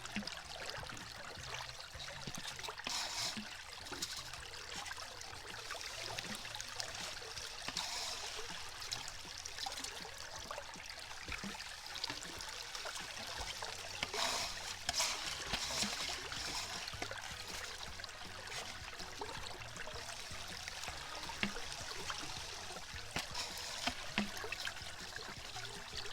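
Creek water running and trickling steadily through a gold sluicebox during a test run, swelling louder now and then, with faint clicks.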